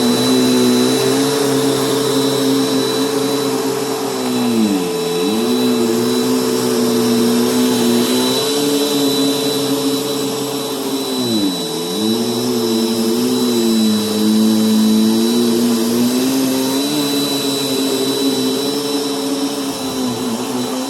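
Bissell vacuum cleaner motor running steadily with a high whine. Its pitch dips briefly about five seconds in and again near the middle, then recovers.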